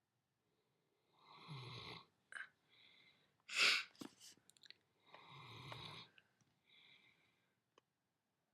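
Snoring: two snores, each about a second long and a few seconds apart, each followed by a softer breath out. Between them comes a short, louder puff of breath.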